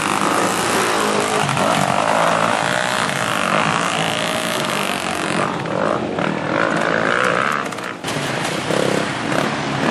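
Dirt bike engines revving through mud, with a brief break about eight seconds in.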